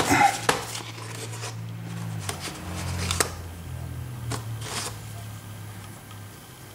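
Small metal clicks and brief scrapes of a steel lock pick being worked into the pinned plug of a disassembled Keymark lock cylinder, about half a dozen scattered ticks that thin out toward the end.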